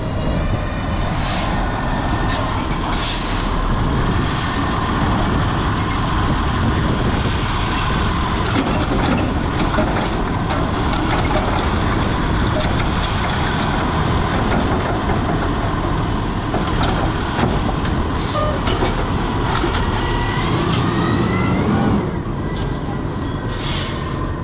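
New Way Sidewinder automated side-loader garbage truck working at the curb: the engine runs steadily while the hydraulic arm lifts a wheeled recycling cart, tips it into the hopper and sets it back down, with scattered clanks. Near the end the engine's pitch rises as the truck moves off and the sound gets quieter.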